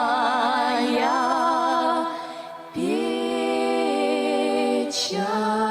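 Voice singing the drawn-out last line of a slow Russian folk song, holding long notes with vibrato over sustained accordion chords, and pausing briefly mid-way.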